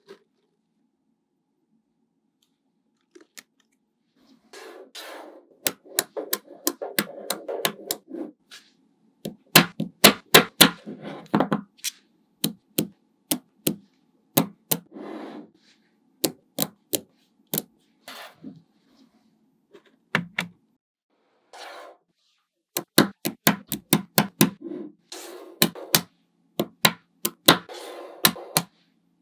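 Small magnetic balls snapping together with sharp clicks, some single and some in quick runs, with soft rustling between them as they are handled. The clicks start about four seconds in.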